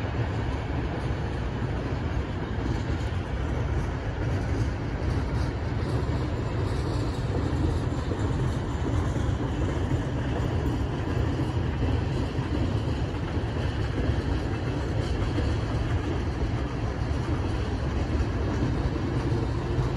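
Freight train of empty flatcars rolling past at trackside, its wheels on the rails making a steady rumble.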